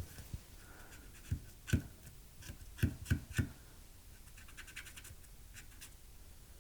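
Hand tools and small parts being handled during a circuit-board repair: light scratching and a handful of sharp knocks and clicks, the loudest cluster of three about three seconds in, then a few faint ticks.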